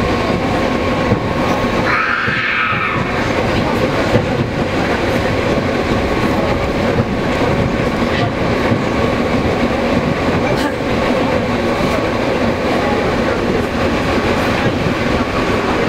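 Suburban electric train (elektrichka) running at speed, heard from inside the passenger carriage: a steady running rumble and rattle with a faint steady hum, and occasional clicks of the wheels over rail joints.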